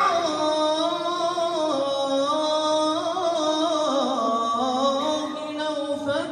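A man singing a solo mawwal without accompaniment, amplified through a microphone: long held notes with wavering melismatic ornaments, the line sinking lower around the middle.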